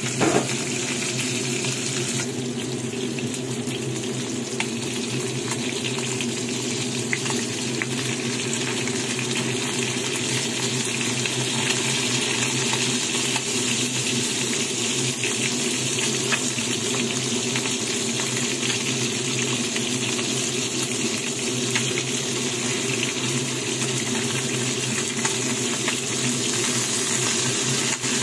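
Whole fish frying in hot oil in a pan: a steady sizzle with scattered small crackles and spits, over a steady low hum.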